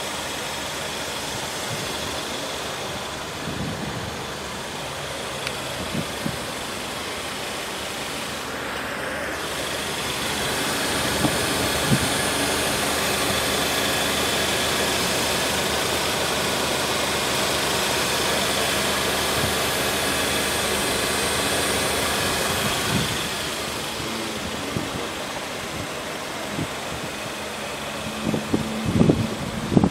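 Kia Sorento's 2.4-litre inline-four engine idling steadily. It grows louder for about thirteen seconds in the middle, heard from beneath the car, with a few light knocks near the start and end.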